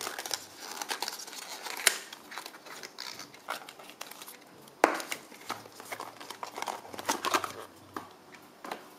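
Hands opening a small cardboard puzzle-cube box and pulling out its paper leaflet and cube: crinkling and rustling of card and paper, with two sharp snaps about two and five seconds in.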